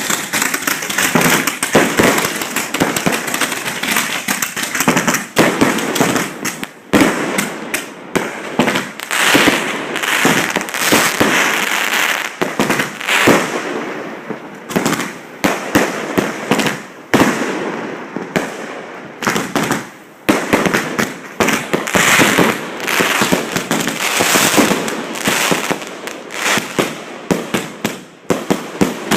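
Fireworks display at close range: a dense, unbroken run of bangs and crackling bursts, many overlapping, with no real pause.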